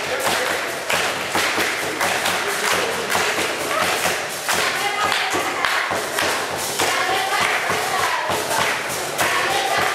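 Schoolchildren's feet stamping and landing on a hard floor in a jumping Kiga dance, a busy run of thuds, with children singing along in the middle.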